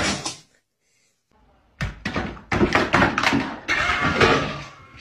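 A sudden loud thud right at the start. From about two seconds in comes a dense, rapid run of thuds, knocks and scuffling.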